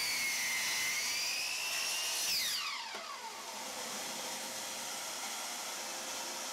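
Makita miter saw motor whining at speed, then released about two seconds in and spinning down with a falling pitch. A steady hiss from the vacuum hooked to the saw's dust port continues after it.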